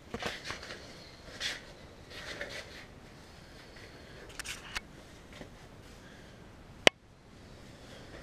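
Handling and movement noise near the engine while it is not running: soft rustles, shuffles and light clicks, with one sharp click about seven seconds in.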